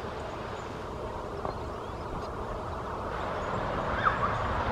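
Steady outdoor rumble and hiss that grows slowly louder toward the end, with one brief high chirp about four seconds in.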